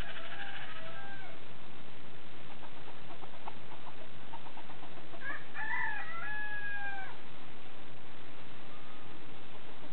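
Black Sumatra rooster crowing: the end of one crow at the start, then a full crow about five seconds in, lasting about two seconds and broken into several pitched segments. Its owners liken the crow to the intro of a military song.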